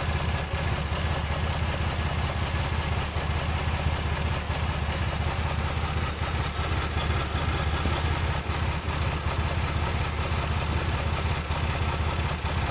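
1994 Toyota Land Cruiser FJ80's 4.5-litre 1FZ-FE inline-six idling roughly. The idle is uneven, with small dips in level every second or few.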